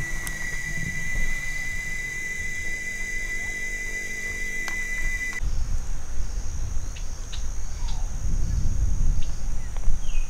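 Insects trilling steadily at one high pitch, then, about halfway through, an abrupt change to wind buffeting the microphone with a few short bird chirps near the end.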